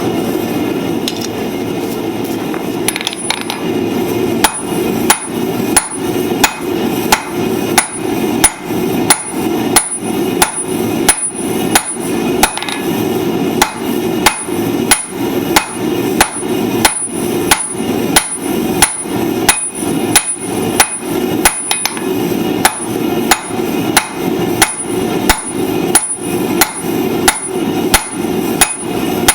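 Hammer blows on hot steel at an anvil while forging flat-nib blacksmith's tongs, a steady run of about two strikes a second beginning about three seconds in, with a high anvil ring on each blow. A steady roar runs underneath throughout.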